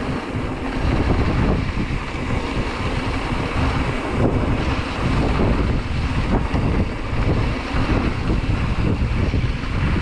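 Wind buffeting the microphone while a mountain bike rolls over a rough dirt trail, with a low rumble from the tyres and scattered rattles and knocks from the bike.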